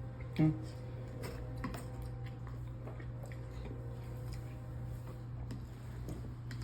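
Close-miked chewing and soft eating noises with small scattered clicks, over a steady low hum. A brief voice-like sound comes about half a second in.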